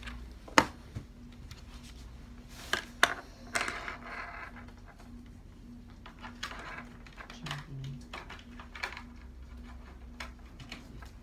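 Scattered clicks and knocks of a cheap computer mouse being handled and tried out on a desk, with a short rustle about four seconds in.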